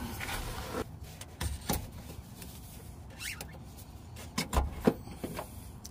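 Light plastic clicks and rubbing as a 2009 Chevy Cobalt's EVAP canister vent valve is twisted a half turn to unlock and worked loose from the charcoal canister by hand. The clicks come scattered, several close together in the second half.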